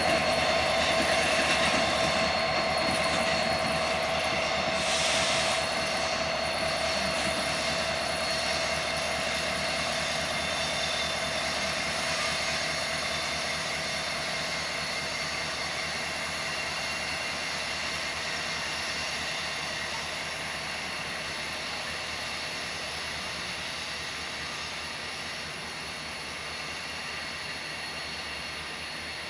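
Union Pacific SD70ACe diesel locomotive and freight cars rolling away, their engine drone, wheel noise and a steady tone fading gradually as the train recedes.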